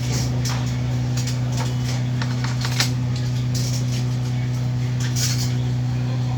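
Steady low electrical hum with scattered small clicks and light clinks, like small objects being handled.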